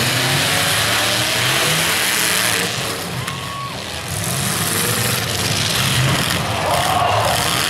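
Several demolition derby pickup trucks running hard, engines revving as they push and ram each other, with a short lull in the noise about three seconds in.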